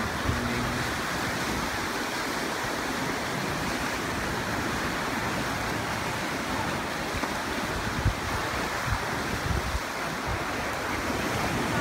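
Ocean surf washing and breaking against lava rocks, a steady rushing noise, with a few brief low thumps of wind on the microphone about eight and ten seconds in.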